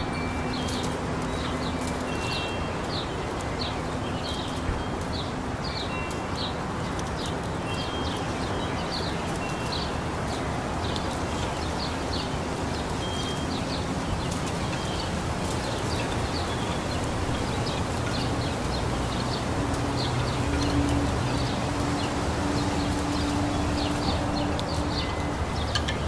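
Small birds chirping, short high chirps repeating all through, over the steady hiss of a light breeze in the leaves. A low distant hum underneath grows louder about two-thirds of the way in.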